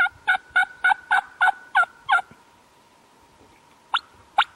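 Wild turkey yelping: a quick run of about eight evenly spaced yelps, then a short pause and two more sharp notes near the end.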